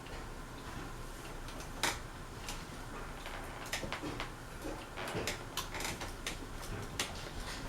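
Irregular light clicks and knocks, about a dozen, the sharpest just under two seconds in and a cluster between five and seven seconds, over a faint steady background.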